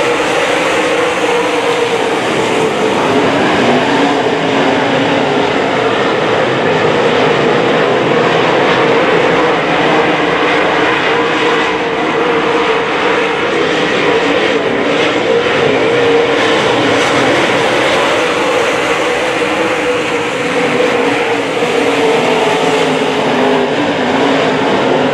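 A field of dirt-track modified race cars running laps together, their V8 engines making a loud, steady, dense engine sound whose pitch drifts slightly up and down as the cars go round.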